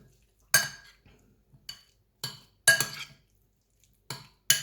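A utensil clinking and scraping against a bowl as chicken pieces are stirred into crème fraîche: a run of sharp clinks, roughly two a second, each with a short ring.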